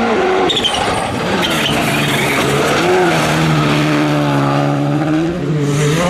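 Rally2 car's turbocharged four-cylinder engine at stage speed on gravel. Its note drops at the start as the driver lifts, gravel hisses and crackles under the tyres, then the engine is held high and steady. Shortly before the end a second rally car's engine takes over.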